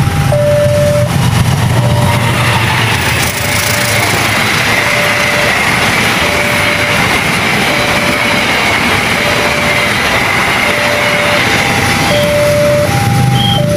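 Passenger train running past close by over the level crossing, a steady rush of wheels on rail from about two seconds in that dies away near the end. Under it the crossing alarm keeps sounding its two-note alternating chime, heard most clearly at the start and again near the end.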